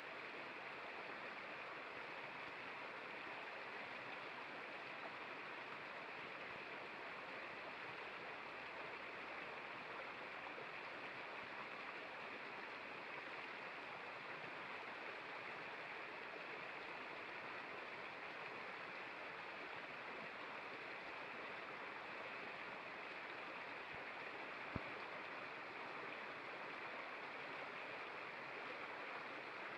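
Shallow rocky creek rushing and splashing over stones, a steady unbroken water sound. A single brief click late on.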